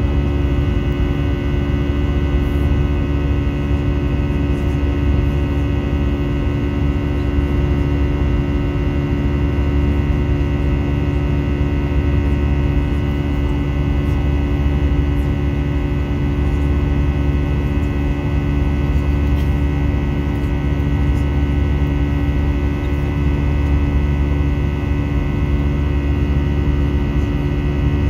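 Airbus A320 cabin noise in flight: the steady drone of the jet engines and rushing air heard from a passenger seat, made of several steady hums layered together.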